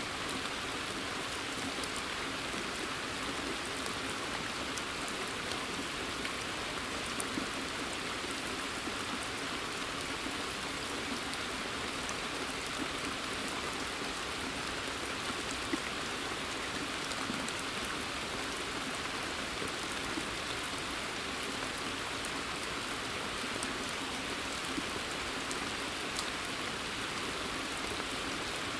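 Steady rain falling on a pond and the surrounding forest: an even hiss of drops, with a few louder single drips now and then.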